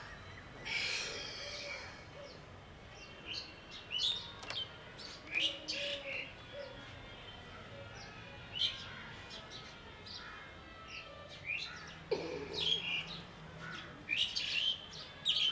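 Small birds chirping in short, scattered calls, with a brief rushing hiss about a second in.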